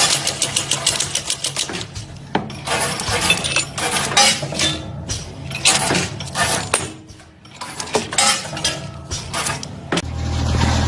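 Steel roller bearing being assembled: a quick, even run of metallic clicks, about ten a second, as a press tool works around the roller cage, then irregular clinks and rattles of the steel rollers and races as the tapered roller bearing is handled. Near the end a steady low engine hum comes in.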